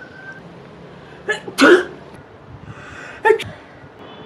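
A person sneezing twice with a voiced "acciù": a short catch followed by a loud sneeze about a second and a half in, then a shorter, sharper sneeze about three seconds in.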